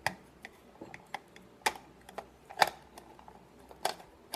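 A series of sharp, light taps and clicks at uneven intervals, about nine in all.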